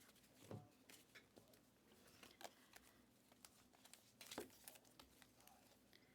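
Faint handling of trading cards and foil pack wrappers: light rustling and scattered small clicks, with two soft knocks as cards are set down, about half a second in and again past four seconds.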